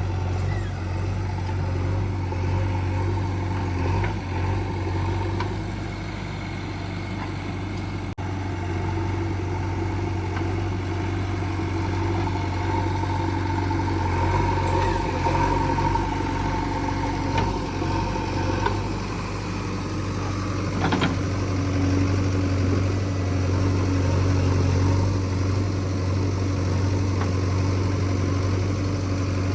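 JCB 3DX backhoe loader's diesel engine running steadily, with a few short knocks, the loudest about 21 seconds in.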